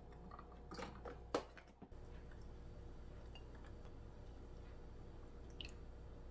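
Milk poured from a carton into a glass mug of ice, with a few clicks and knocks about a second in, one of them sharper. Then a faint thin stream of coffee poured from a small glass pitcher over the ice and milk, and a light click near the end.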